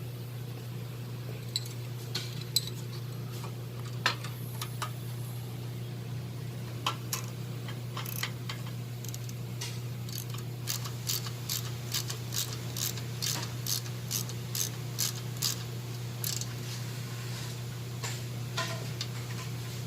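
Ratchet wrench clicking steadily at about two to three clicks a second for several seconds as it tightens a nut onto a bolt, after a few scattered clicks of metal parts being handled. A steady low hum runs underneath.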